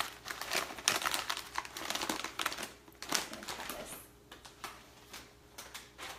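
Plastic bag of dry stuffing mix crinkling and rustling as it is handled and opened, with irregular crackles that thin out after the first few seconds.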